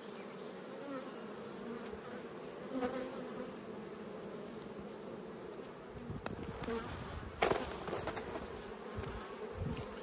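Steady, wavering hum of a crowded honeybee colony buzzing in an open Langstroth hive. Scattered knocks in the second half and a short rustling burst about seven and a half seconds in.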